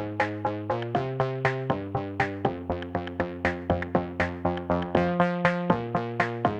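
Electronic background music: synthesizer chords with a quick, steady pulse of plucked notes, about four a second.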